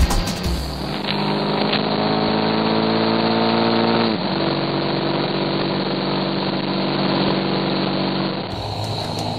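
Motorcycle engine heard from on board, rising in pitch as it accelerates, then dropping suddenly about four seconds in, as in a shift up a gear, and running steadily after, with wind and road noise.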